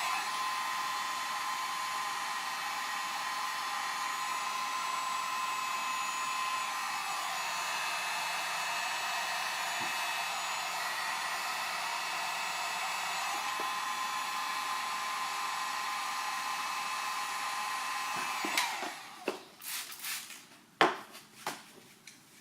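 A heat gun blowing steadily with a thin high whine, used to warm a vinyl overlay so it stretches and settles over the light. It switches off about three-quarters of the way through, and several sharp clicks and knocks follow.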